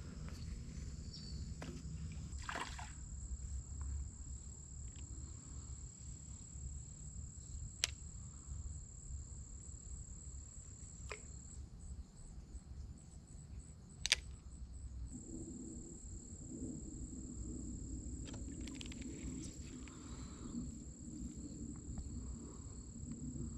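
Steady high-pitched insect drone over a low rumble, with two sharp clicks along the way.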